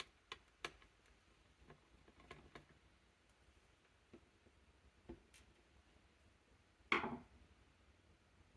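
Scattered light clicks and taps of small parts and tools being handled on a laptop during disassembly, with one louder, short clatter about seven seconds in.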